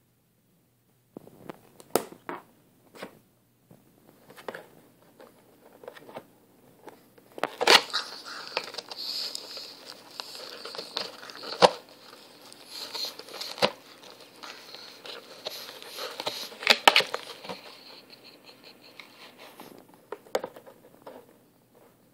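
A pug in a cardboard box biting and tearing at the cardboard: crinkling, rustling scrapes with sharp cracks now and then. It starts about a second in and is busiest in the middle.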